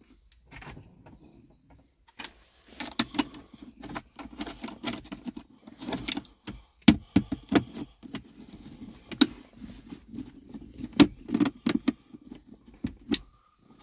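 Hard plastic centre-console trim of a Ford Explorer being handled and fitted back into place: an irregular run of clicks, knocks and rattles.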